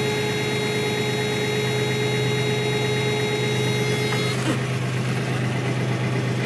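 Toyota 3VZ-E 3.0 V6 engine idling steadily. A faint high whine alongside it cuts off about four seconds in.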